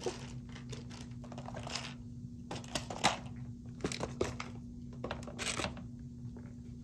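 Scattered light clicks and rustles of small objects being handled, a few louder ones in the middle, over a steady low hum.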